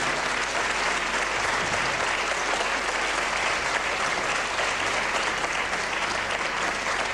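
Studio audience applauding a correct answer: steady, even clapping from many hands.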